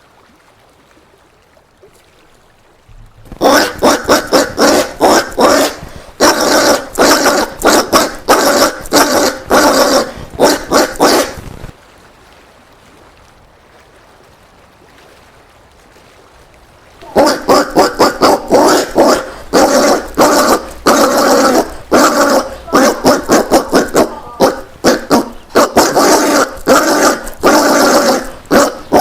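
Collared peccary (caititu) giving rapid barking grunts, several a second, in two long bouts separated by a pause of about five seconds.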